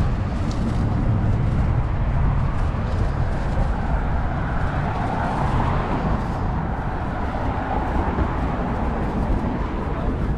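Street traffic noise: a steady rumble of passing cars, swelling louder through the middle as a vehicle goes by.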